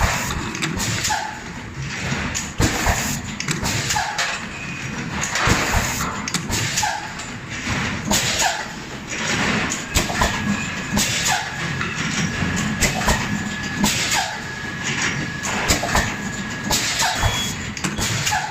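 Fully automatic two-cavity PET bottle blow molding machine running: a steady series of mechanical clunks and sharp compressed-air hisses as the molds open, clamp and blow. A thin steady whistle holds for several seconds in the second half.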